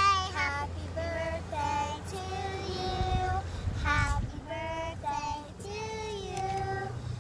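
Two young girls singing together, with long held notes, over a steady low rumble.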